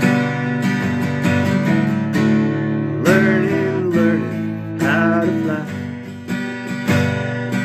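Acoustic guitar strumming open chords at a steady pace, with a held, wavering wordless vocal line over it in the middle.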